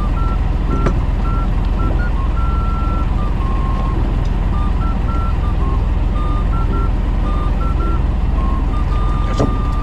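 Fishing boat underway: the engine runs with a steady low rumble under wind and water noise. Over it comes an irregular string of short electronic beeps stepping between two or three pitches.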